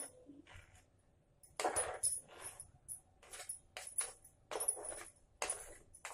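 Spoon stirring in a bowl, scraping and clinking against it in repeated strokes about two a second, as chopped onion and tomato are mixed into semolina.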